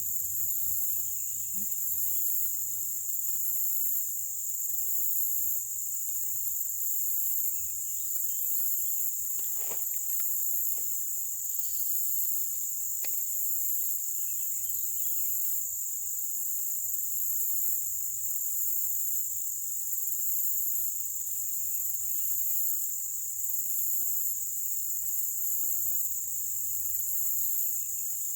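Steady high-pitched chorus of insects, with a constant buzz and a higher band that pulses evenly. A few faint short clicks sound around ten seconds in.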